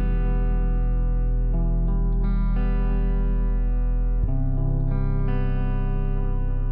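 Background music: sustained electric guitar chords with effects, changing chord about four seconds in.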